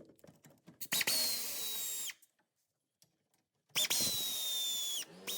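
A cordless power tool runs in two bursts of about a second each, its motor whine falling slightly in pitch during each burst.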